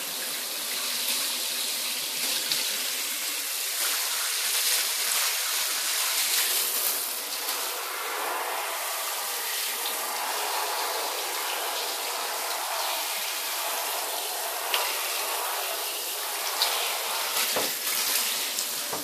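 Handheld shower head spraying a steady stream of water onto a wet cat and into a bathtub, with a couple of brief knocks near the end.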